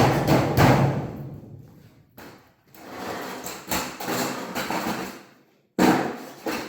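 A handful of sharp knocks and thumps, each ringing off for a moment, from sheet-metal ductwork being handled and fitted.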